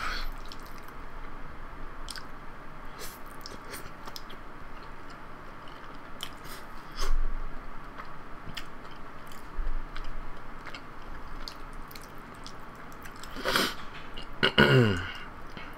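Close-up chewing and eating sounds of a person eating jajangmyeon (black-bean sauce noodles), with scattered small clicks of chopsticks against the bowl. Near the end there is a short, louder mouth sound whose pitch falls.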